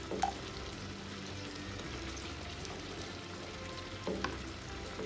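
Steady sizzle of shrimp sautéing in butter in a pan, with a couple of faint ticks, about a quarter second in and again around four seconds in.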